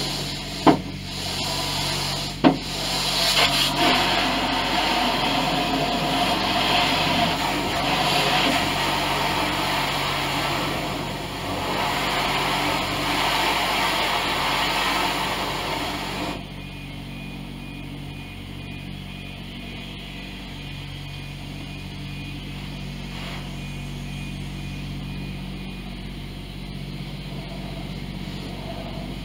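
Water spraying over a car, heard from inside the cabin as a loud, even hiss, with two sharp knocks in the first few seconds. The spray cuts off suddenly about halfway through, leaving a quieter steady low hum and a faint thin high tone.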